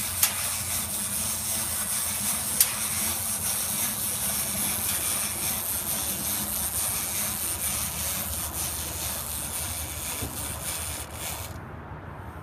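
Wind-up toy chicken's clockwork mechanism whirring steadily as it walks and lays bubble-gum eggs, with two sharp clicks in the first three seconds. The whirring cuts off suddenly near the end as the spring runs down.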